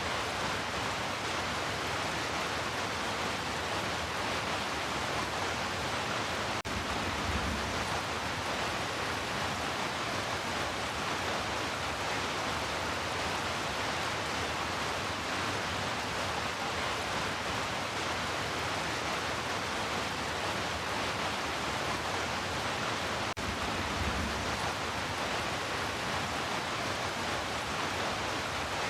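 Steady heavy rain, an even hiss with no let-up. A brief low thump comes about seven seconds in and again near the end.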